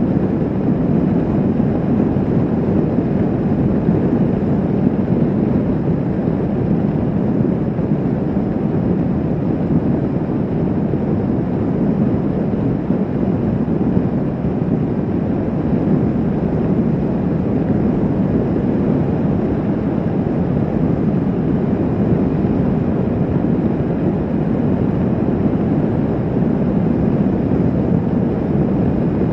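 Steady rush of wind on the microphone of a Kawasaki Vulcan S 650 cruising at highway speed, with the bike's parallel-twin engine running evenly underneath. It is a constant low drone with no changes in speed or throttle.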